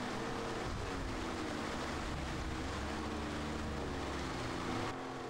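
Outboard engine of an inflatable inshore lifeboat running under way, its pitch drifting up and down, with wind and water rushing past.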